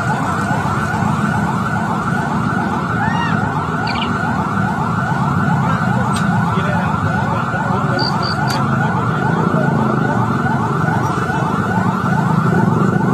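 Emergency vehicle siren on a fast yelp, rising in quick sweeps about three times a second, over the low rumble of street traffic and motorbikes.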